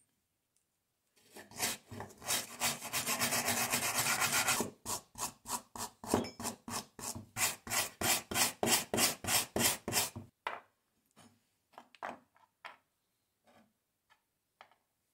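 Steel wire brush scrubbed by hand against the rusty metal parts of an old hand drill: a few seconds of dense continuous scraping, then quick back-and-forth strokes at about three a second, ending about two-thirds of the way through. A few faint light clicks follow.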